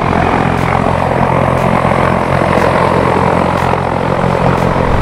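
Propeller aircraft engine running steadily close by: a loud, even engine drone with the rush of propeller wash.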